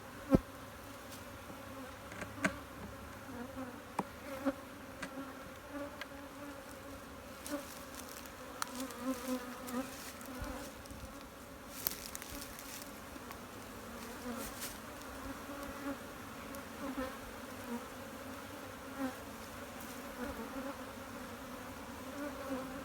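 Honeybees buzzing in a steady, wavering hum around an open hive, with scattered sharp knocks and clicks, the loudest about half a second in.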